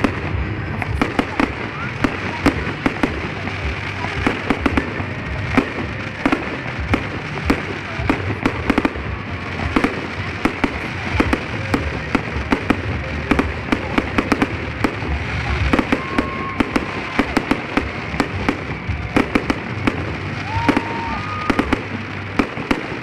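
Fireworks salute: aerial shells bursting overhead in a rapid, irregular string of sharp bangs and crackles, several a second, over a steady low rumble.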